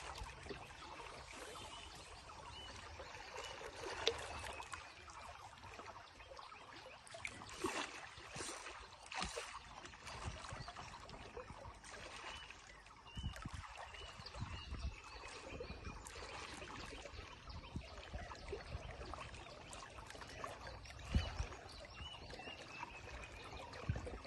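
Faint water trickling and lapping around a wooden boat, with scattered light knocks and a few faint, short descending chirps.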